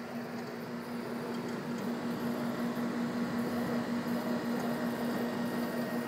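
Mid-1980s Carrier window air conditioner running: a steady hum under a rush of air from the vent blowing onto the microphone.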